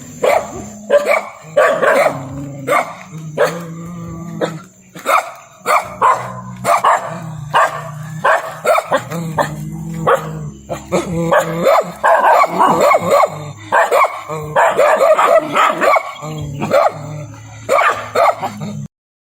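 A dog barking repeatedly in quick, irregular runs of short barks, cutting off abruptly near the end.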